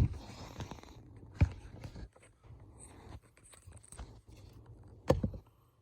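Handling sounds of work in a car cabin: scattered soft clicks and rustles, with a sharper knock about a second and a half in and another about five seconds in.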